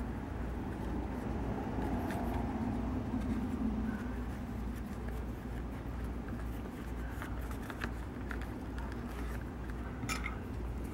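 Faint rustling and a few small clicks of stitching thread being handled and knotted to tie off a saddle stitch, over a steady low hum, with a low drone swelling and fading in the first few seconds.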